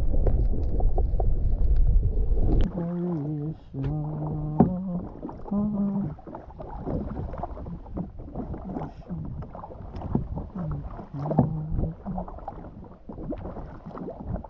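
Underwater rumble of water against the camera for the first couple of seconds. It cuts off abruptly and gives way to a kayak being paddled: the paddle blades dip and splash, and water drips and laps against the plastic hull. A few short, low, hum-like tones come and go over the water sounds.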